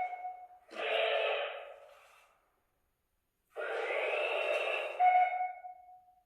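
Toy robot's small speaker playing electronic sounds in two short bursts, the second ending on a held tone.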